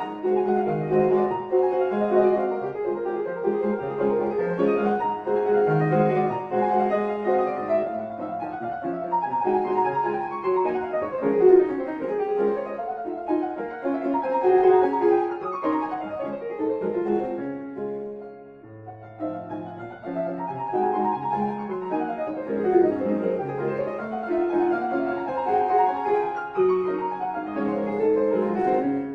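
Background piano music in a classical style: quick runs of notes, with a short lull about two-thirds of the way through.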